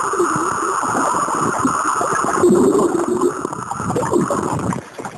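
Muffled water sloshing and gurgling around a camera moving through pool water. The sound changes abruptly a little over two seconds in and turns quieter near the end.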